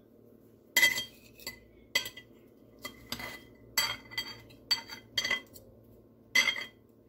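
Metal fork and knife clinking and scraping against a ceramic plate while cutting a slice of pie: about a dozen sharp, irregular clinks.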